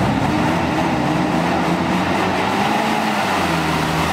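Toyota Land Cruiser off-road truck's engine running under load as it crawls through mud, its pitch slowly dropping.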